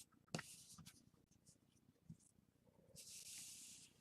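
Faint handling of trading cards: a light click about a third of a second in, a few soft ticks, then a brief sliding rustle near the end as a card slides against the stack.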